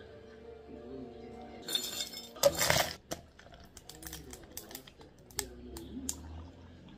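Hands making bubble tea: a short loud rush of noise about two and a half seconds in, then a string of small clinks as ice knocks in a plastic bottle while milk tea is poured into a cup over tapioca pearls. Faint background music and voices run underneath.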